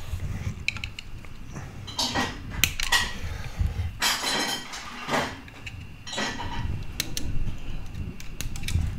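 Metal hand tools (pliers and a screwdriver) clinking and scraping against a 3D-printed plastic fan duct in a handful of short bursts, as the duct is trimmed and fitted to the printer.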